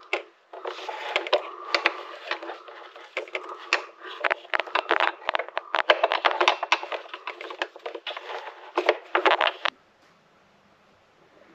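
Rapid, irregular clicking and clattering of small hard objects, which stops abruptly near the end, leaving a faint low hum.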